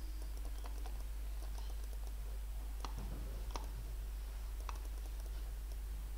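A handful of scattered clicks at a computer's keyboard and mouse, the clearest three between about three and five seconds in, over a steady low electrical hum.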